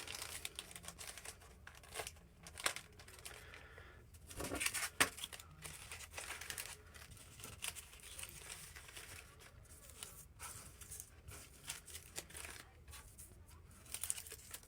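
Crinkling and rustling of a small plastic bag and adhesive bandage wrappers being handled, in irregular short bursts with sharp crackles.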